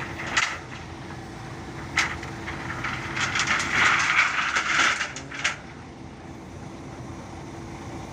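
Steel rebar bundle being set down onto a pile of rebar: a sharp clank just after the start and another about two seconds in, then a clatter of bars knocking together for about two and a half seconds. Underneath, the mobile crane's engine runs steadily.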